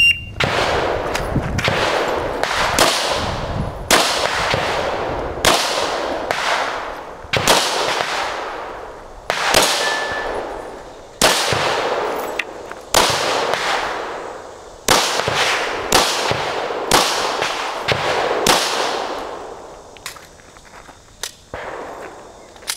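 A shot timer's start beep, then a Glock 34 9mm pistol firing a string of single shots about one to two seconds apart, each shot followed by a long ringing echo. Near the end the shots stop and only a few small clicks remain.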